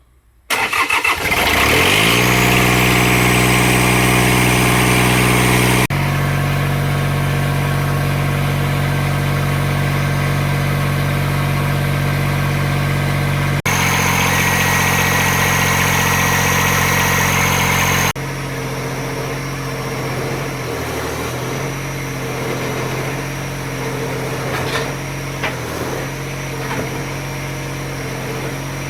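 Mini excavator's swapped-in engine cranking briefly and catching about half a second in, then running steadily. The engine note changes abruptly a few times and is quieter and less even in the last third.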